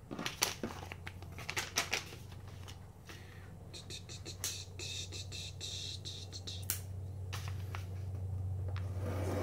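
A paper package being handled and cut open on a desk: sharp taps and paper clicks at first, then a few seconds of scratchy scraping, over a steady low hum.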